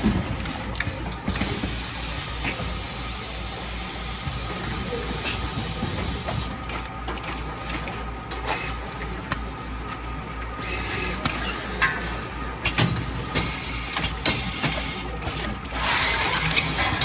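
Automatic carton case form-fill-seal packaging machine running: a steady low pulsing hum with frequent sharp mechanical clicks, and a burst of pneumatic air hiss near the end.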